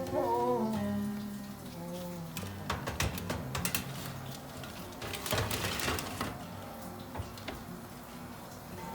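Background acoustic song with guitar fading out over the first couple of seconds, followed by a scattering of light knocks and clatter as household objects are handled.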